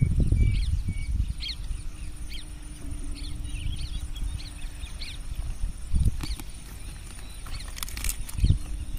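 Outdoor ambience of small birds chirping repeatedly over a steady low rumble, with two short knocks near the end.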